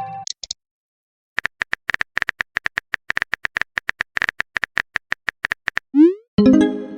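Rapid, irregular clicks of a phone keyboard typing sound, then near the end a short rising swoosh followed by a chiming message tone.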